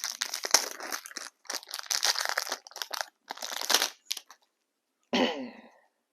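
Paper trading cards being handled and shuffled: irregular spurts of rustling and scraping, stopping about four and a half seconds in. A brief murmured voice sound follows about a second later.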